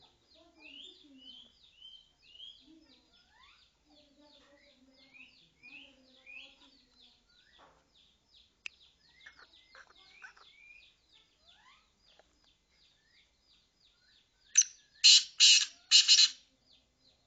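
Francolin (teetar) calling: four loud, harsh calls in quick succession near the end. Throughout there is a fast, high-pitched ticking run and short rising chirps.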